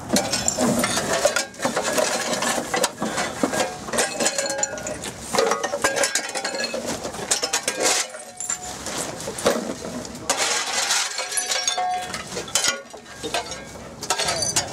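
Metal shovel scraping across dirt and scooping litter and debris, a continuous run of scrapes and clinks.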